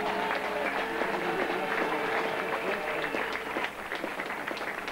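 Crowd applauding, many hands clapping together, with a steady tone held underneath until nearly four seconds in.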